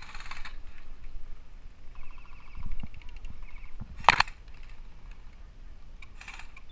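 Airsoft guns firing short rapid bursts across the field, with one louder, sharp crack about four seconds in.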